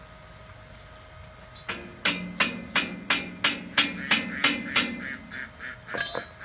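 A hammer striking metal in quick, evenly spaced blows, about three a second, with the metal ringing between strikes. After about nine hard blows it finishes with a few lighter taps.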